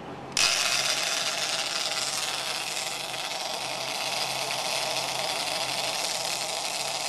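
A big-game fishing reel's drag buzzing steadily as a hooked tuna dives and pulls line off the reel. It starts suddenly just after the beginning and holds without a break.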